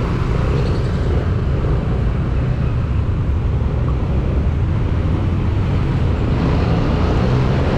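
Motorcycle under way: steady engine hum mixed with a low wind rumble on the rider's microphone.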